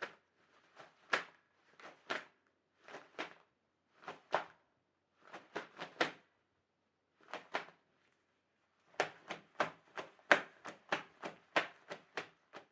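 Short crunching knocks in uneven groups of two or three with pauses between. Near the end they come faster and closer together, about four or five a second.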